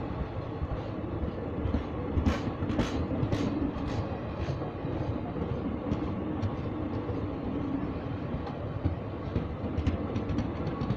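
Indian Railways passenger coaches rolling past close by: a steady rumble of wheels on the rails, with sharp clickety-clack of wheels crossing rail joints, a cluster of clicks about two seconds in and several more near the end.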